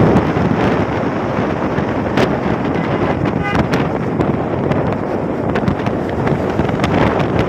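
Wind rushing over the phone's microphone on a moving motorcycle, a steady loud roar with road noise beneath and a few sharp clicks.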